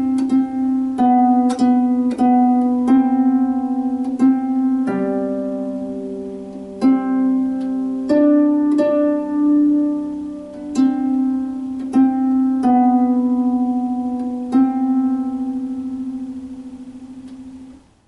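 Lever harp plucked by hand, playing a slow, simple melody with the notes ringing into one another. The last note rings for about three seconds and then fades out near the end.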